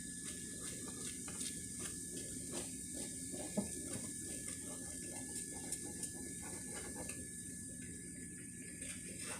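Omelette eggs frying in a skillet on medium heat, a steady crackle of many small pops. One sharper click stands out about three and a half seconds in.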